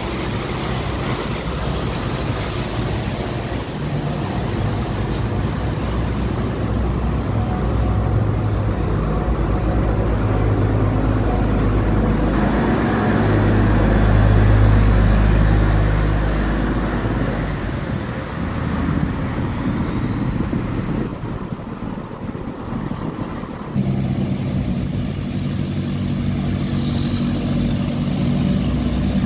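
Cargo barge's diesel engine running hard as the barge accelerates past through the sluice gate, with water churning along its hull; loudest about halfway through, then fading. A second boat's engine starts up steadily about three quarters of the way in.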